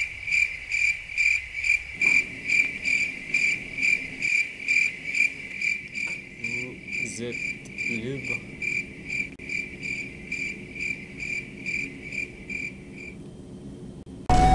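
Crickets chirping, the stock comedy sound effect for an empty, silent moment: one high chirp repeating about two and a half times a second, which stops shortly before the end.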